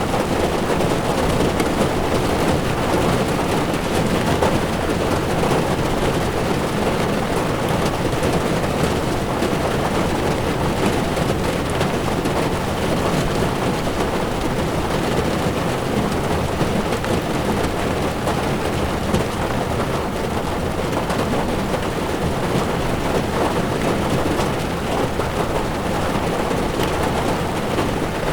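Heavy rain falling on a moving car's windshield and body, mixed with tyres running on wet asphalt: a steady, dense noise with no breaks.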